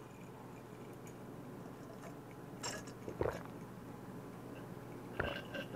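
A man drinking from a glass mug, with a few soft gulps about two and a half seconds, three seconds and five seconds in, over faint room tone.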